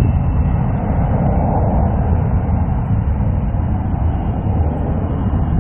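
Jet aircraft engines at takeoff power: a loud, steady rumble, strongest in the low end.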